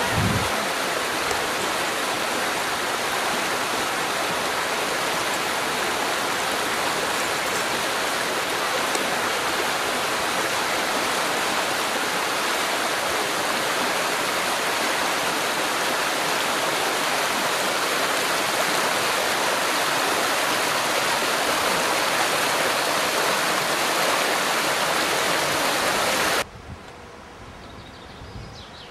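Rushing river water, a steady, even hiss with no rhythm, that stops abruptly near the end.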